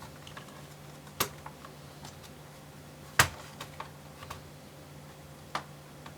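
Plastic clips of a laptop's bottom cover snapping loose as a plastic pry tool is worked along the seam: three sharp clicks, the loudest about three seconds in, with small ticks and scrapes between them.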